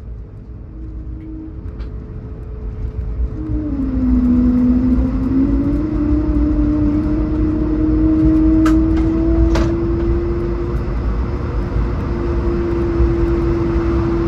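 Airbus A220-100's Pratt & Whitney geared turbofan engines heard from inside the cabin while taxiing: a low rumble with a distinct engine tone that dips, then rises and holds steady, growing louder about four seconds in.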